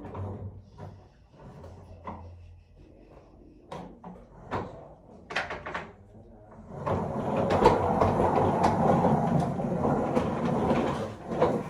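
Scattered knocks and clatter of handling for several seconds, then a vacuum cleaner switches on about seven seconds in and runs steadily and loudly.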